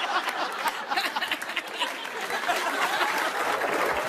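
Studio audience applauding, with some laughter mixed in, steady throughout.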